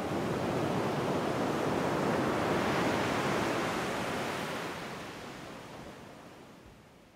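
A rushing noise without pitch that swells to a peak a few seconds in, then fades away.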